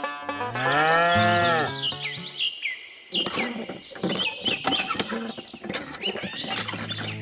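A cow mooing once near the start, a call of about a second and a half that rises then falls in pitch. Short high chirps follow, then scattered clicks and rustling.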